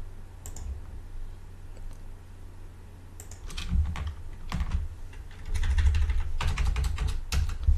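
Computer keyboard typing: keystrokes in scattered bursts, a few at first and busier in the second half.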